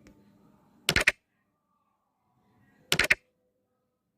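Two short clusters of sharp clicks, about two seconds apart.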